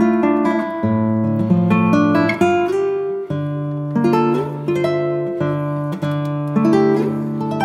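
Background music: an acoustic guitar plucking a melody over held bass notes.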